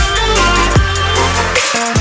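Electronic background music with a heavy bass and a regular drum beat.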